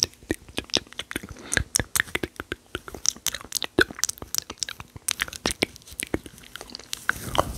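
ASMR mouth sounds made close to the microphone: a fast, irregular run of wet clicks and smacks, several a second.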